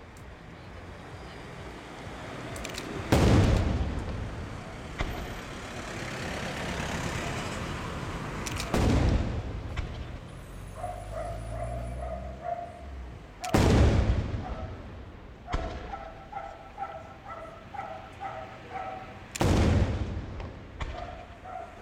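Aerial firework shells bursting: four loud booms about five seconds apart, each followed by a rolling echo.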